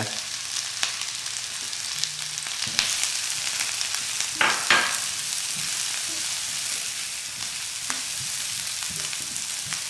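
Chopped red onion and garlic sizzling in hot rendered pork fat in a wok as they are sautéed, stirred with a silicone spatula. A steady frying hiss, with a few sharper scrapes of the spatula, the strongest two about halfway through.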